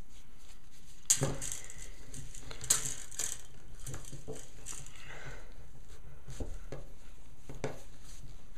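Braided 3/8-inch poly rope being pulled and cinched into a knot by hand on a wooden tabletop: rustling and rubbing of the rope with small clicks. Two sharp knocks stand out, about a second in and a second and a half later.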